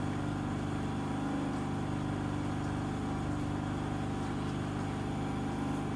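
Steady low mechanical hum from a running motor, holding several fixed low tones without change.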